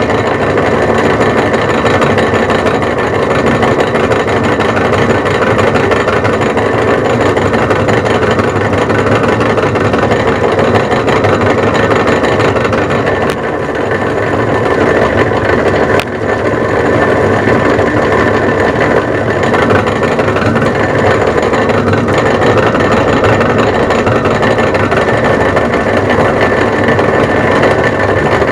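Turnell & Odell lathe running steadily while a drill bores through the tailstock quill, close to breaking through. There is a brief dip and a sharp tick about thirteen seconds in, and another tick near sixteen seconds.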